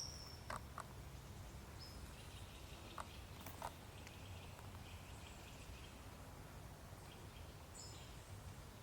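Faint outdoor ambience: a steady low rumble with a few short clicks, and faint high, thin chirps and whistles now and then, like small birds calling.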